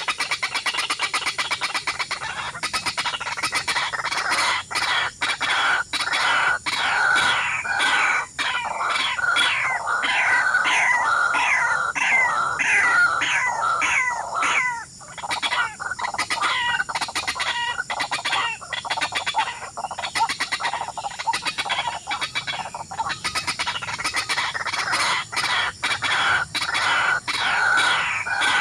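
Small birds chirping continuously: many short, falling calls one after another, overlapping.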